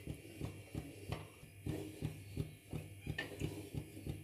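Wooden spatula stirring milk in a steel kadhai, scraping the pan in a quick steady rhythm of about four strokes a second. It knocks sharply against the metal twice, about a second in and again after three seconds.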